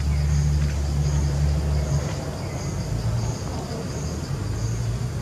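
A low, steady motor-like hum that drops in pitch and level about two seconds in. Over it, a high insect buzz pulses evenly, about five times every four seconds.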